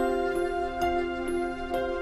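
Soft instrumental background music, with held notes and new notes starting about twice a second.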